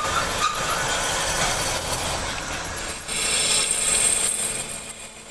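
Bench drill press drilling into cast metal pump parts, the bit grinding through the metal with a high squeal. The sound changes about three seconds in.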